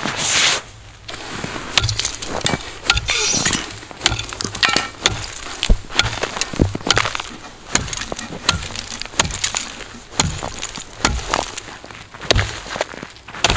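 Ice chisel chopping a hole in frozen lake ice: repeated sharp strikes with chipping and cracking ice, roughly one or two a second. Boots scuff through snow in the first second.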